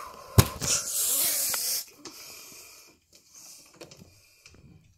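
A sharp knock against the phone, then a loud breathy rush of a person's exhale right at the microphone lasting over a second, followed by quieter handling and rustling of the phone.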